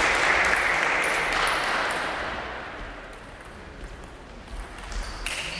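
Spectators clapping after a point won in a table tennis match, the applause dying away over about two seconds. Near the end, the sharp clicks of a celluloid table tennis ball on bat and table as play resumes.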